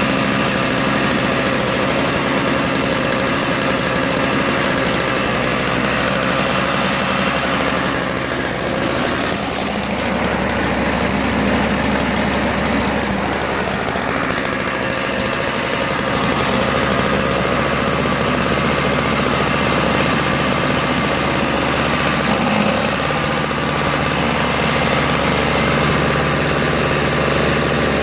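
Toro CCR Powerlite-E snowblower's 3 hp Tecumseh two-stroke engine running steadily, briefly a little softer about nine seconds in. It is running again on its own after the carburetor jet and the clogged fuel line were cleaned, still cold and needing to warm up.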